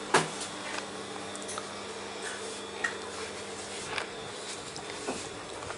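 Indoor room tone: a faint steady hum with scattered knocks and clicks, the loudest a sharp knock just after the start.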